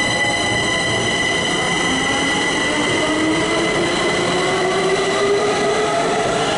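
Kaohsiung MRT Red Line train pulling out of the station and accelerating. Its motors give a whine that climbs steadily in pitch from about two seconds in, over the steady rumble of the cars rolling past.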